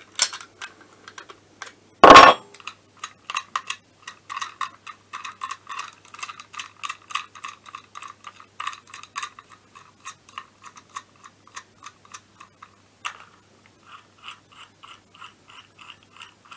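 A hand-turned crankshaft bearing-fitting tool clicking in quick, even strokes, about five clicks a second, as it is unscrewed after pressing in a bearing; the clicks come more slowly near the end. A single loud metal clank comes about two seconds in, as a flat spanner is set down on the wooden bench.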